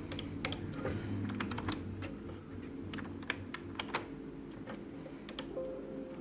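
Irregular keystrokes and clicks on a computer keyboard, over a steady low hum.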